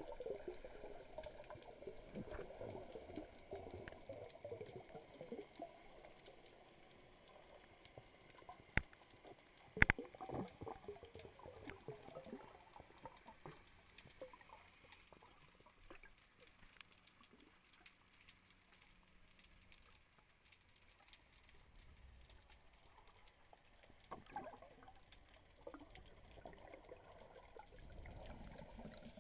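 Muffled underwater sound picked up through an action camera's waterproof housing: bubbling and gurgling of water around a freediver, busier at the start and again near the end, quieter through the middle. Two sharp knocks about nine and ten seconds in.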